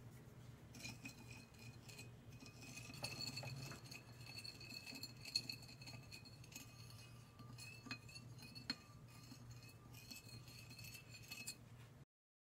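Faint, occasional clinks of fingers and dishware against a ceramic plate as a dark liquid is stirred in it by hand, over a faint steady high whine. The sound cuts off abruptly near the end.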